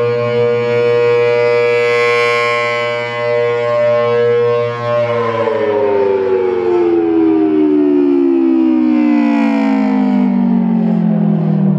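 Federal Signal Thunderbolt 1000AT rotating siren with a 4/5-port chopper, sounding its steady alert chord, its loudness dipping as the horn turns away. About five seconds in it shuts off and winds down, the chord falling steadily in pitch.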